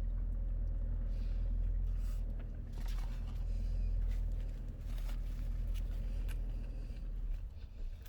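Steady low rumble of a car idling, heard from inside the cabin, with a few faint clicks and rustles from eating and handling food. The rumble eases near the end.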